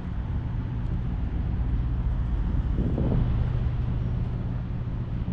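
2019 Dodge Charger Scat Pack's 6.4-litre HEMI V8 running with a steady low exhaust drone, with a brief louder swell about three seconds in.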